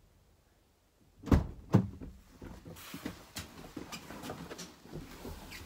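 Someone climbing into a van's driver seat. After a second of silence come two thumps, then jacket fabric rustling with small knocks, and a heavy thump at the very end.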